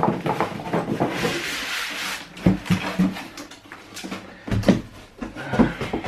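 Cardboard packaging being handled: a scraping rustle of cardboard sliding against cardboard, then a series of knocks and thumps as the box inserts and a foam-packed part are lifted out and set aside.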